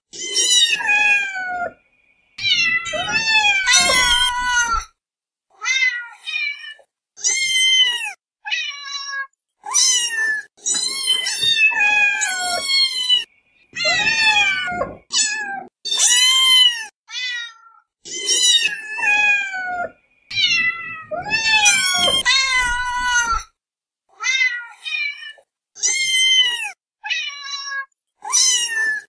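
Kittens meowing over and over: a string of short, high-pitched meows, each rising and then falling in pitch, with brief pauses between them.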